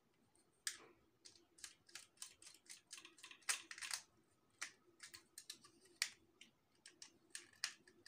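Electrical wire being bent and twisted by hand: a faint run of short, irregular clicks and scratches.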